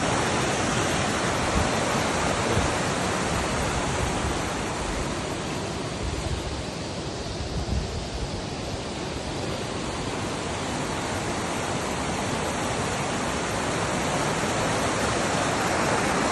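Floodwater rushing steadily over a railway track.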